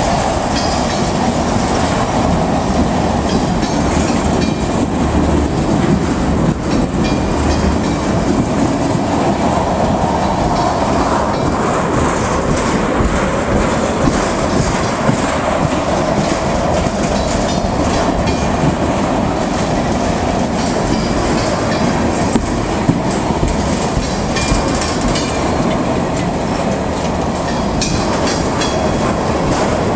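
Freight train of tank cars rolling past close by: the steady, loud rumble and rattle of steel wheels on the rails, with clickety-clack as wheel sets cross rail joints.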